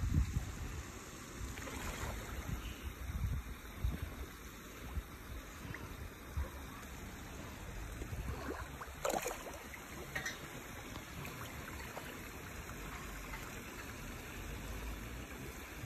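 Water sloshing and splashing as a mass of catfish churns the surface at the bank, with a few sharper splashes, the clearest about nine seconds in.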